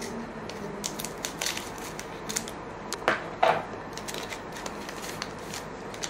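Trading card pack wrapper being torn open and crinkled: a string of small crackles, with two louder rips a little after three seconds in.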